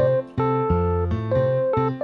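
Instrumental background music: a melody of plucked, guitar-like notes, one after another, over a low bass line.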